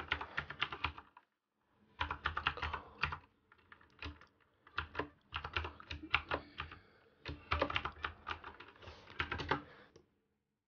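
Typing on a computer keyboard in quick bursts of keystrokes, with short pauses about a second in and again around four seconds in; the typing stops near the end.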